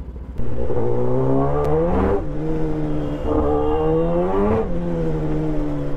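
Kawasaki ZX-10R inline-four engine accelerating under way, starting abruptly. Its pitch climbs, drops at a gear change about two seconds in, climbs again and drops at a second upshift a little past the four-second mark, then runs steadier.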